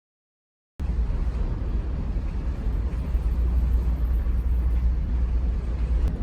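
Steady low rumble and noise of a ferry under way, starting abruptly a little under a second in.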